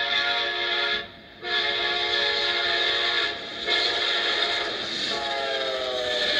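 Horn of an Amtrak P42DC diesel locomotive blowing a series of long blasts, with short breaks about a second and about three seconds in. The last blast falls in pitch near the end as the locomotive passes. It plays through laptop speakers.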